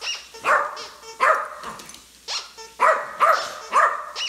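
Small dog barking repeatedly: about eight short, sharp barks, roughly two a second, with a brief pause in the middle.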